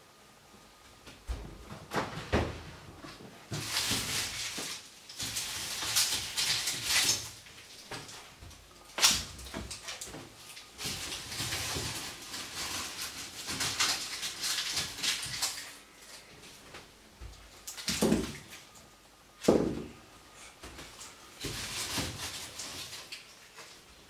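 Rummaging in a refrigerator: long stretches of rustling, with sharp knocks and thuds as items are handled and onions are set down on a wooden counter.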